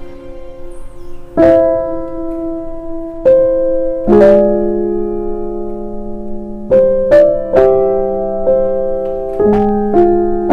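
Background piano music: single struck notes and chords ringing and fading, slow at first and then in quicker succession about seven seconds in.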